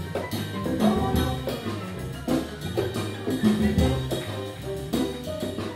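Live Latin jazz band playing, with piano and drum kit keeping a regular beat under the melody.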